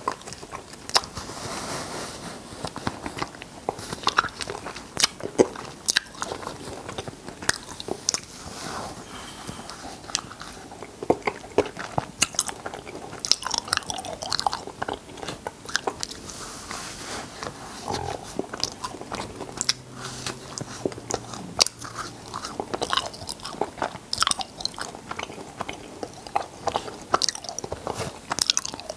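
Cotton candy being eaten up close: many irregular wet mouth clicks and smacks as mouthfuls of the floss are bitten and chewed, with soft handling of the fluffy candy between bites.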